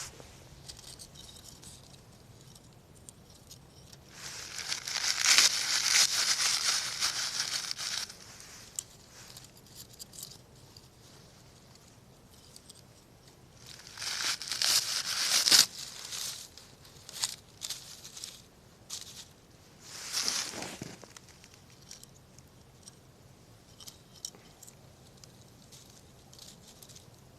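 Dry tinder or paper being crumpled and torn in three rustling bursts, about four, fourteen and twenty seconds in, with scattered small snaps between them, typical of handling fire-starting material for a campfire.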